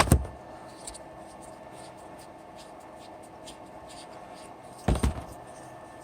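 Handling of the spool holder and its nut: a sharp knock at the start and another about five seconds in, with faint small clicks and scrapes between them, over a faint steady hum.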